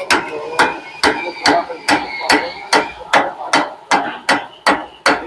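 Steady hammer blows on the steel steering knuckle of a Ford Cargo 1721 front axle, about two to three a second with a metallic ring between strikes. The blows are seating the roller and the adjustment shims in the knuckle's upper end during king pin installation.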